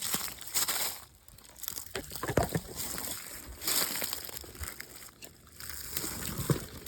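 Irregular crunching and rustling in short bursts, with a couple of soft low thumps, about two and a half seconds in and near the end.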